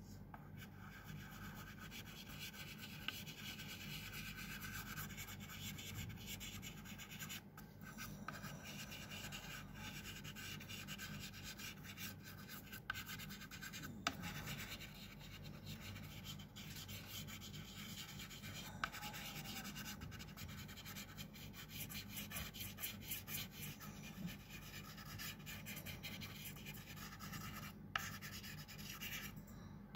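Pastel stick scratching and rubbing over paper in continual strokes, with a few sharp clicks.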